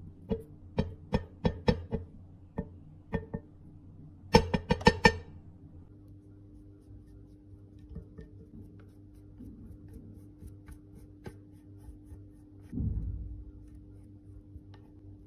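Sharp taps of a plastic eyeshadow palette being knocked to shake loose powder off it, about a dozen in the first few seconds with a quick run of about five louder ones. These give way to faint ticks and the soft brushing of a makeup brush along the palette's edge, with a brief low thud near the end.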